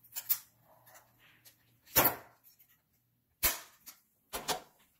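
Plastic shell of a DJI Mavic Mini drone clicking as a metal-tipped tool pries at the seam of its top cover: four short, sharp clicks, the loudest about two seconds in and another about three and a half seconds in.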